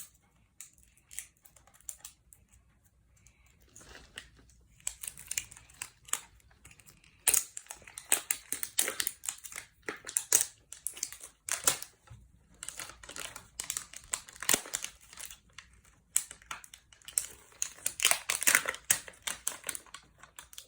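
Toy packaging wrap being crinkled and torn open by hand: mostly quiet at first, then irregular, busy crackling and rustling from about four seconds in.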